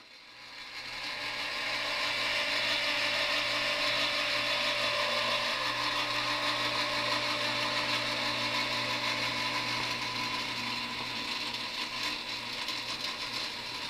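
Motor and mechanism of a wooden kinetic sculpture turning its nested wooden squares, a steady mechanical whirring hum with a low drone under it, fading in over the first second or two.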